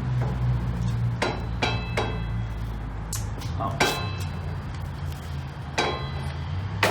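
Sharp metallic knocks and clinks with a brief ring, about seven spread unevenly, from handling and setting up a mitre saw and wood, over a steady low hum.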